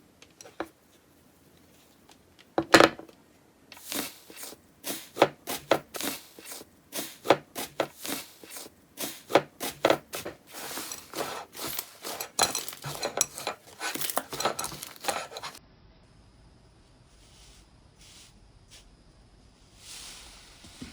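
Slime being handled and pressed, making a fast run of sharp crackling clicks that stops abruptly about three-quarters of the way in, followed by a few faint taps.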